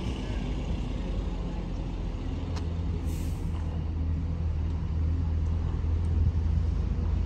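Class 33 diesel locomotive engine running with a steady low rumble, and a brief air hiss about three seconds in.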